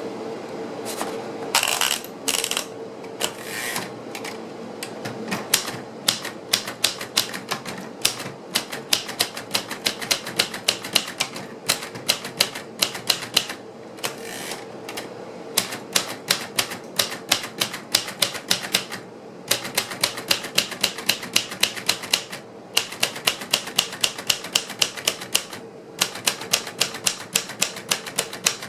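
1966 Royal Aristocrat manual portable typewriter being typed on: fast runs of sharp keystrokes, several a second, broken every few seconds by short pauses.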